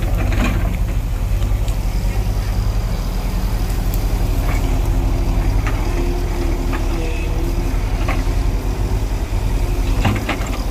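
JCB 140 crawler excavator's diesel engine running steadily under working load, with a steady whine joining about three seconds in as the boom works and a few sharp cracks along the way.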